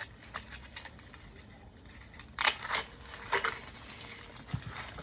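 Plastic shrink-wrap on an instant noodle cup being burst open and pulled off, giving a few sharp crinkling crackles, the loudest about two and a half and three and a half seconds in.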